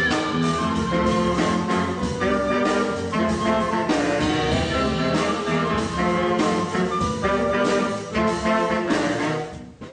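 A school band's horn section of trumpets, trombone and saxophones playing a lively tune in short, punchy rhythmic chords. The music breaks off just before the end.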